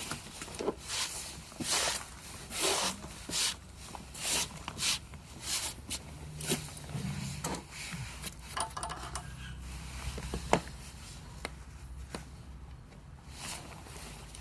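Screws being gathered and fitted into a wooden cabinet door to fix a concealed hinge: a run of short clicks, knocks and scrapes, with a low hum in the middle.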